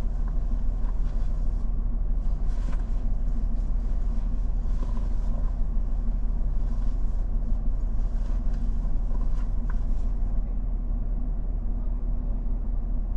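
Nissan Frontier pickup's engine idling steadily, with faint scattered ticks and crackles that stop about ten seconds in.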